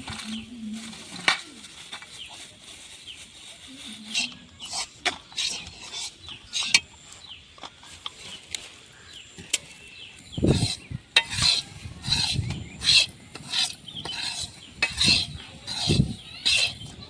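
Utensil scraping and stirring in a cooking pan: irregular short scrapes, sparse at first and coming thick and fast over the second half, with a few dull knocks.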